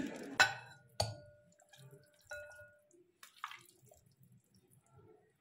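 A steel bowl clinking against a cut-glass bowl with a brief ring as wet raw chicken wings are tipped in and handled; two sharp clinks in the first second, a lighter one after two seconds, then soft wet sounds of the meat.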